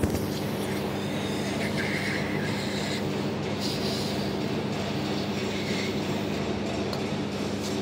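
Steady low mechanical hum, with short soft hisses about two seconds and about three and a half seconds in.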